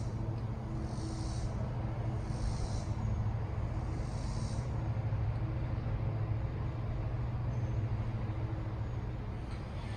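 A steady low mechanical hum, with a rhythmic high-pitched pulsing about once a second that stops about halfway through.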